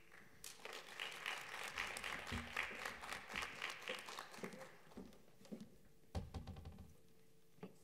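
Audience applauding, the clapping fading out about four and a half seconds in, followed by a few soft thumps.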